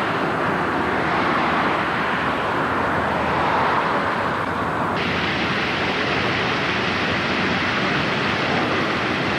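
Steady outdoor rushing noise on a camcorder microphone, with no distinct events; its tone turns brighter and hissier abruptly about five seconds in.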